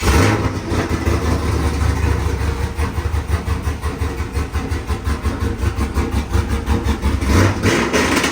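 A pickup truck's engine fires up right at the start and settles into a loud, uneven, pulsing idle.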